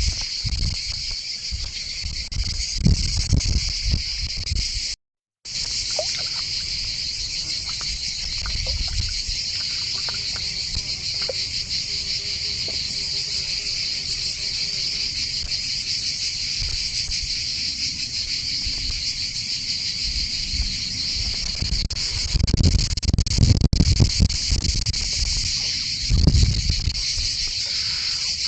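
Steady, high-pitched insect chorus, with low rumbles near the start and again near the end. The sound drops out for about half a second about five seconds in.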